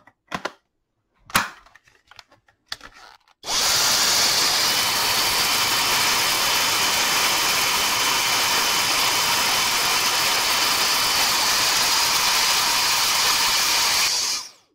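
A few clicks of handling, then a Dyson DC35 cordless handheld vacuum starts up about three and a half seconds in, running on a replacement battery pack. It runs as a steady, loud rush of air with a faint high motor whine for about ten seconds, then switches off near the end.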